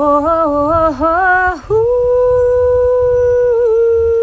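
A woman's voice singing a short wavering phrase that steps up and down in pitch, then, about a second and a half in, holding one long high note with a slight wobble.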